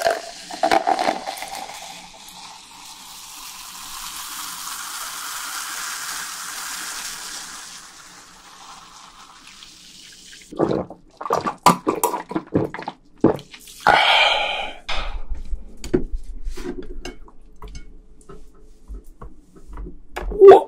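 A drink poured from a plastic bottle into a glass: a steady pour of about eight seconds that fades out. After it come scattered clicks and knocks of chopsticks and dishes.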